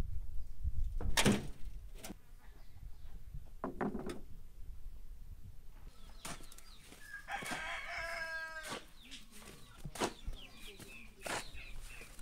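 Stones knocking and thudding as they are handled and loaded into a wheelbarrow, a few separate knocks in the first seconds. About seven seconds in, a rooster crows once for about a second and a half, and a few short clucks follow.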